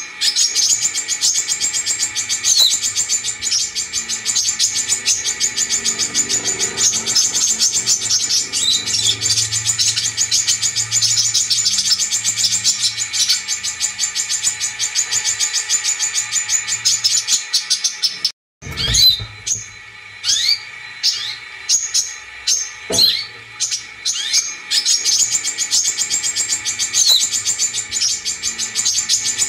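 Brown-throated sunbird song played as a lure recording: a fast, high chattering trill. It cuts off about two-thirds of the way through, is followed by a few separate sharp calls, and then the trill comes back.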